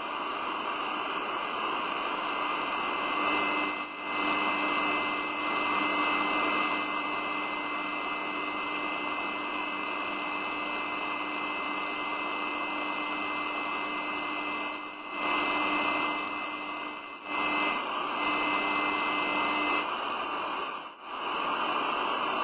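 Steady rushing hiss with a faint steady hum and two thin high whistling tones running under it. The level dips briefly a few times.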